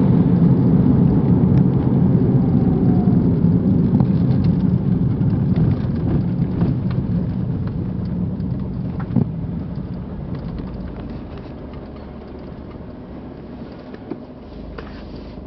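Smart ForTwo Passion's small three-cylinder petrol engine running with a steady low hum that slowly grows quieter, while the car is still switched on before the odd 'gas' noise the owner is trying to identify.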